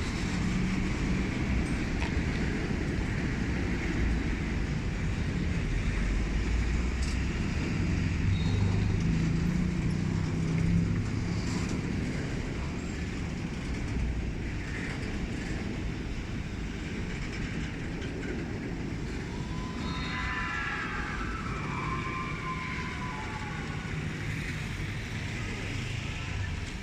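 Freight train rolling through with a steady low rumble. A few higher wavering tones come in about twenty seconds in.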